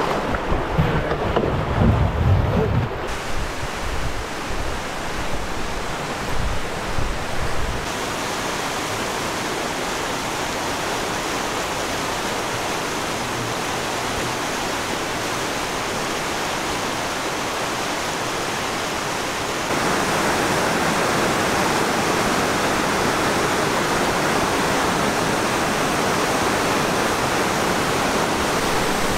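Rushing water of river rapids, a steady even hiss that turns louder and brighter about two-thirds of the way in. Wind buffets the microphone with low rumbling gusts during the first several seconds.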